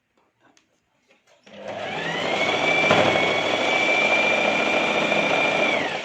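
Electric sewing machine running a line of stitches: after a few faint clicks, the motor starts about a second and a half in, whines up to speed, runs steady, then slows and stops near the end.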